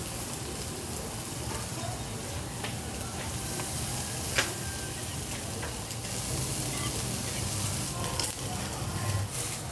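Marinated pork chops sizzling steadily on a small charcoal grill over glowing coals, with a few sharp clicks, the loudest about four seconds in.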